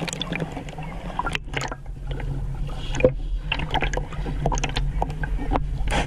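Water sloshing and gurgling around a camera dipped in and out of shallow sea water, heard muffled, with many small clicks and pops over a steady low hum.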